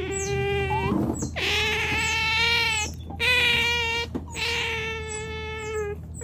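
Otters calling in a run of about four long, high, steady-pitched whines, each a second or more long, with short breaks between them.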